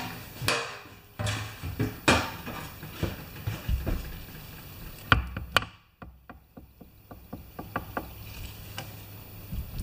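Sharp metallic knocks and clunks as parts of an opened MTD lawn tractor transaxle are handled on a wooden bench, then a run of light, even clicks, about four or five a second, as its gears are turned by hand.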